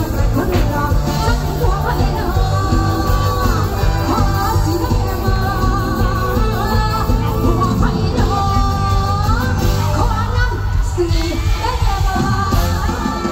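Live band music with a lead singer in Thai mor lam / luk thung style: a sung melody with long gliding notes over a steady driving bass beat.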